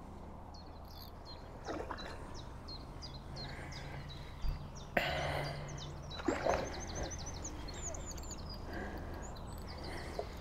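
A songbird singing a string of short high notes, about two a second, with a quicker run of notes a little past the middle, over quiet lakeside ambience. A few short, soft knocks stand out, the loudest about five seconds in.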